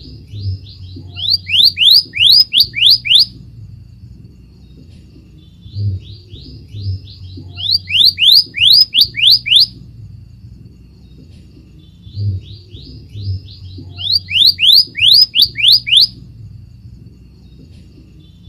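Scarlet minivet song: a phrase of quick thin whistled notes that builds into a run of loud, sharply down-slurred whistles. The phrase comes three times, about six seconds apart, over a faint low hum.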